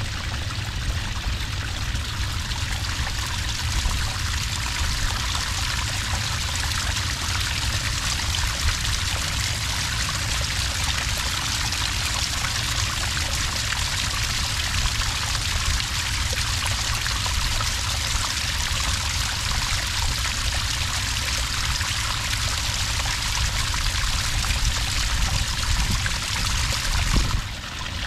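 Small cascade of water pouring steadily onto sand, a continuous splashing flow. It dips briefly near the end.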